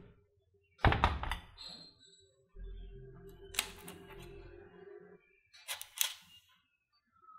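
A metal baking tray set down on a wooden board with a thunk about a second in, then a few light clicks and paper rustles as the baked sweet potato donuts are lifted off the parchment.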